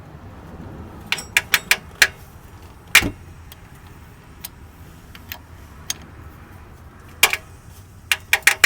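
Car engine idling with a steady low hum and sharp, irregular metallic clicks, in clusters of several quick ticks, which the owner presents as timing chain noise.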